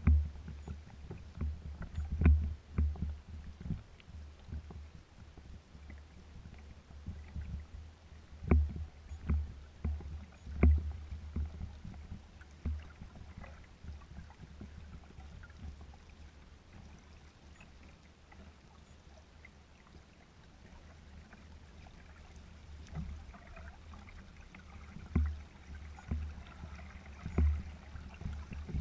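Small waves lapping and slapping against a kayak's hull as it sails slowly, with irregular sharp slaps, a few of them much louder. The slaps die down for a while in the middle.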